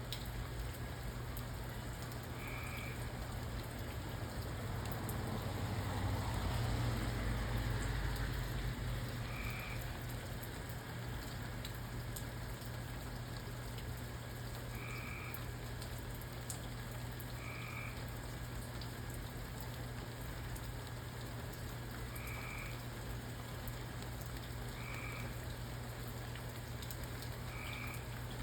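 Steady rain falling at night, with a frog giving a short call every two to three seconds. About five seconds in, a low roll of distant thunder swells and fades over a few seconds.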